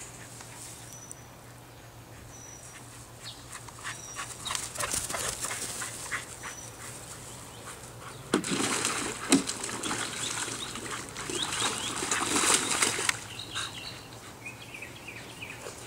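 Water splashing and sloshing in a plastic kiddie pool as a Keeshond wades in and lies down. It starts about halfway through with a couple of heavy splashes and goes on for about five seconds.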